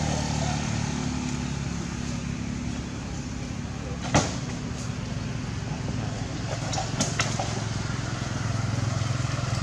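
A steady low engine drone, with a sharp click about four seconds in and two lighter clicks about seven seconds in.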